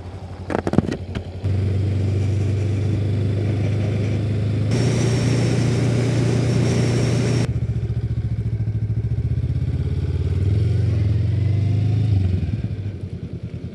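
Honda Rebel 500 motorcycle's parallel-twin engine running, with a few clicks about a second in before a steady engine hum sets in. A louder rushing stretch comes in the middle, and the engine eases off near the end.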